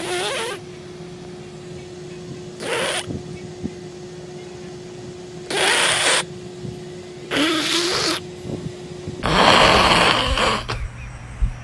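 A woman blowing short breathy puffs of air close to the microphone, five unvoiced bursts two to three seconds apart. The last and longest comes about nine seconds in, with some rumbling handling noise.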